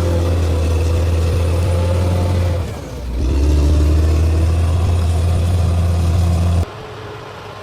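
Heavy earthmoving machine's diesel engine running under load with a deep, steady hum. About three seconds in it eases off briefly, then picks up again with a rising pitch. Near the end it drops abruptly to a much quieter, more distant engine sound.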